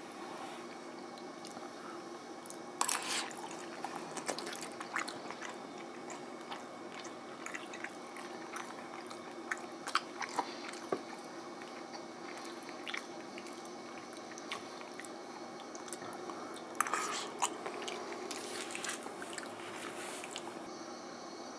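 A person eating noodles: chewing, with scattered short clicks and smacks, clustered about three seconds in and again near the end, over a steady low hum.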